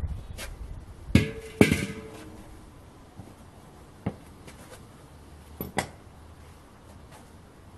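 Metal clanking: two loud ringing clanks about a second in, then a few lighter single knocks.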